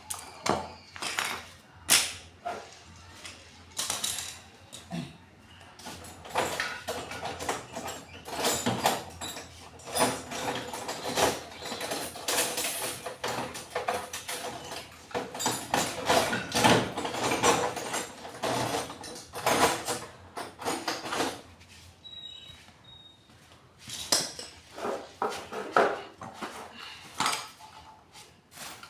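Hand work on metal water-pump parts: tools and metal pieces clinking, knocking and scraping in an irregular run of short strokes, with a brief lull about two-thirds of the way in.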